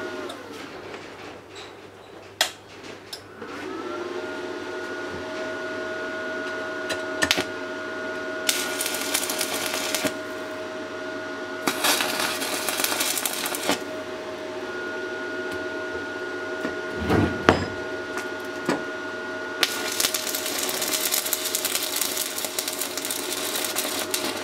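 Stick (MMA) arc welding on thin steel sheet: the arc crackles and sizzles in two short tack welds, then in a longer run near the end. Under it a steady electrical whine from the inverter welding machine comes up a few seconds in, with a few sharp knocks in between.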